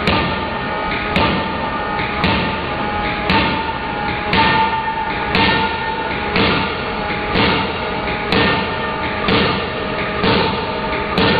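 Hydraulic forging hammer striking red-hot steel in its die, heavy thuds coming evenly about once a second.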